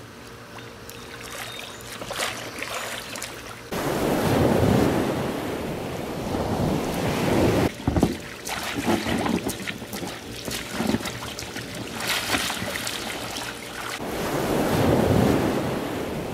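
Wind buffeting the microphone in gusts, over water splashing and sloshing in a swimming pool as children swim. The strongest gusts come about four seconds in and again near the end.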